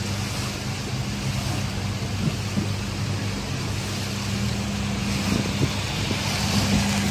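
Car engine idling with a steady low hum, under a constant wash of rain and flowing floodwater. Near the end the water noise grows louder as a car moves through the flooded street.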